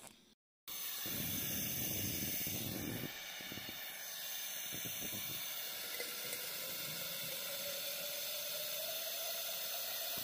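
Gas torch burner hissing steadily as its flame heats an aluminium drink can. A faint tone comes in about halfway through and slowly rises in pitch.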